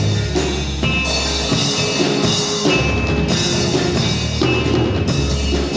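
Live rock band playing an instrumental passage between sung lines: drum kit, bass and guitars at a steady beat.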